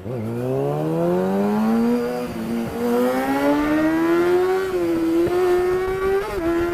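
A vehicle engine accelerating: its pitch climbs steadily for about four and a half seconds, then holds level at high revs.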